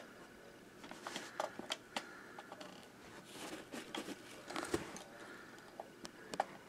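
Hands handling a three-rail model diesel locomotive: scattered light clicks and taps with faint rubbing of fingers on its body.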